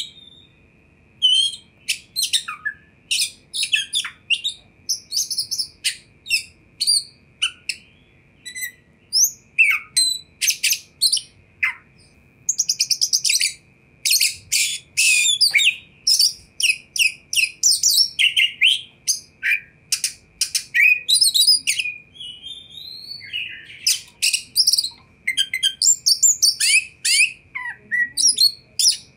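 Oriental magpie-robin singing a long, varied song of short whistled notes, chirps, slurred glides and quick rapid-fire trills, broken by brief pauses between phrases.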